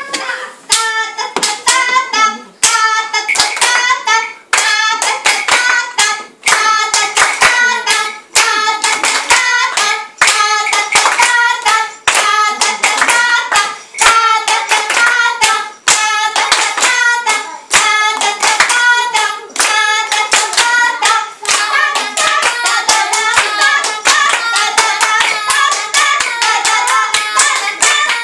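Rhythmic hand clapping keeping a fast, steady beat of several claps a second, with voices singing a chant-like tune over it.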